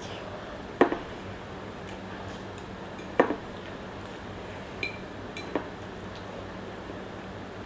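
Eating utensils clinking against a dish: two sharp clinks about two and a half seconds apart, then a few lighter taps, over a steady low hum.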